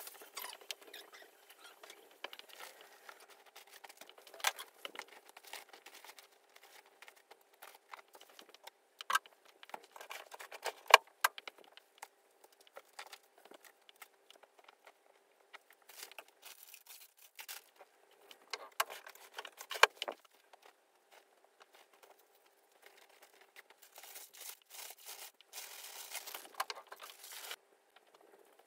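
Light handling noises: scattered small clicks, taps and rustling, with a few sharper ticks and a longer stretch of rustling near the end.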